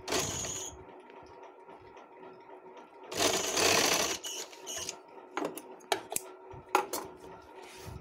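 Sewing machine stitching piping onto cloth in short runs: a brief run at the start, a longer run of about a second partway through, then a few short sharp clicks near the end.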